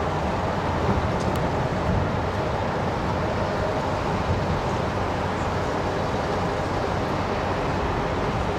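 Steady rumble of road traffic on a nearby highway, with a couple of faint dull thumps from distant fireworks about one and two seconds in.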